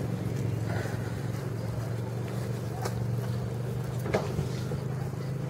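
A steady, low motor hum that holds one pitch, with a couple of faint clicks along the way.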